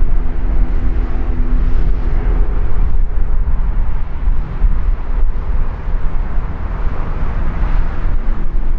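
BNSF freight train moving off down the line, with a steady low rumble and the drone of its rear distributed-power diesel locomotive's engine, which comes through most clearly near the start and again near the end.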